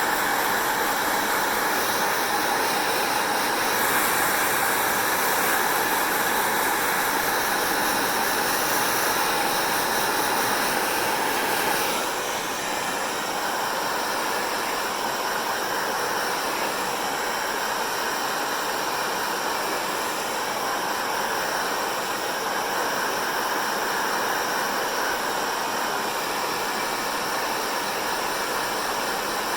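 Hair dryer blowing steadily, a constant rush of air from its fan. About twelve seconds in it becomes slightly quieter and less hissy, then carries on steadily.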